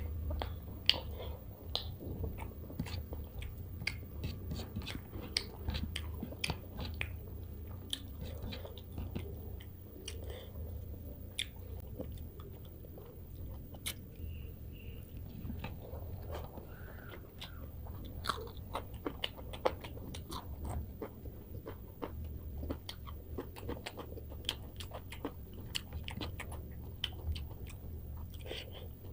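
Close-miked chewing and biting of rohu fish curry and rice eaten by hand, with many small irregular mouth clicks and smacks throughout.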